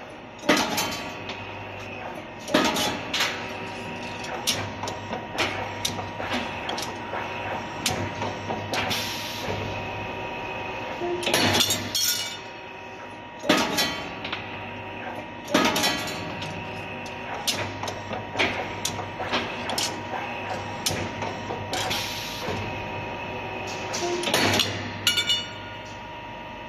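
U clamp bending machine running: a steady motor and gearbox hum under sharp metallic clanks every couple of seconds and lighter ticks between, as the gear-driven bending head with its steel rollers cycles.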